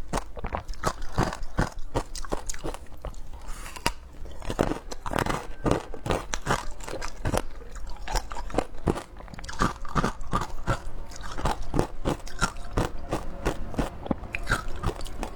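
Frozen passion-fruit ice being bitten and chewed close up: a rapid, continuous run of sharp crunches as the ice cracks between the teeth.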